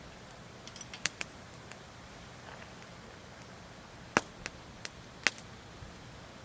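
Wood campfire crackling: scattered sharp pops and snaps at irregular intervals, the two loudest about four and five seconds in, over a faint steady hiss.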